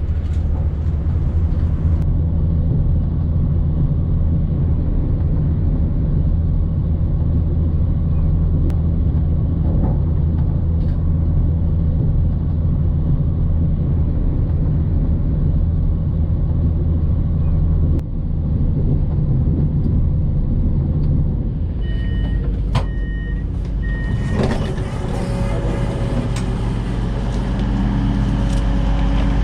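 Steady low rumble of a diesel High Speed Train running, heard from inside the carriage. About three-quarters of the way through there are a few short electronic beeps, and the running noise changes after them.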